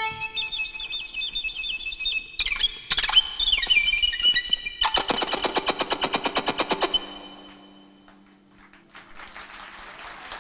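Solo violin playing high, whistling passages with quick falling slides, then a rapid run of repeated bow strokes, about eight a second, over a held accordion chord. The music dies away, and audience applause starts near the end.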